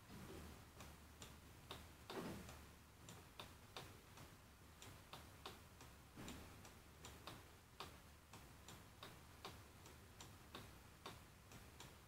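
Faint computer mouse clicks at an uneven pace, about one or two a second, each one trimming away a sketch line in CAD software. A low steady hum runs underneath.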